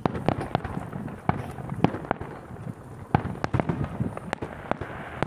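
Aerial firework shells bursting in quick succession: an irregular run of sharp bangs and crackles, several a second.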